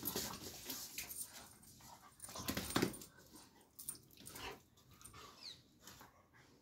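Doberman playing roughly with a chew toy on a tiled floor: scuffling, with many short clicks and knocks. The loudest moment is a cluster of scuffling about two and a half seconds in.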